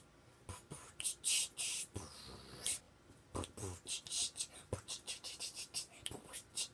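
A child beatboxing softly: short hissing and clicking mouth sounds in an uneven rhythm, with a few low thumps among them.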